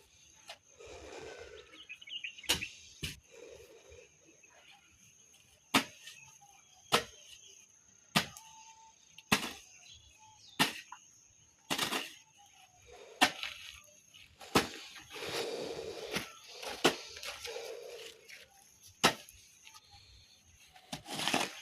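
Sharp knocks or cracks at an irregular pace, roughly one every second or so, with short rushing bursts of noise between them.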